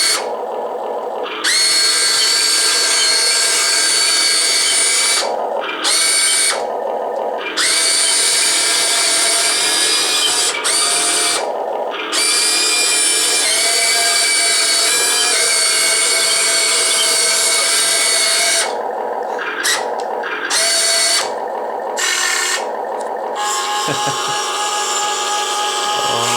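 Electric drive motors and gearboxes of a Huina 1580 full-metal RC excavator whining in repeated runs of several seconds, as the tracks are driven forward and in reverse. Each run rises briefly in pitch as it starts, with short pauses between runs.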